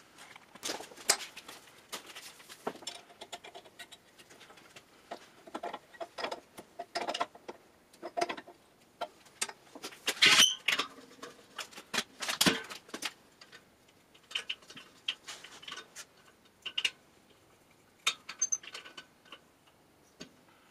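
Irregular metallic clicks, taps and clanks of steel pipe fittings being handled and set in a bench vise, with a louder scraping clatter about ten seconds in and a sharp clank about twelve seconds in.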